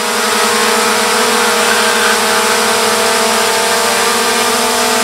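Quadcopter drone hovering close overhead: a steady propeller whine over a hiss of rotor wash, cutting off suddenly at the very end.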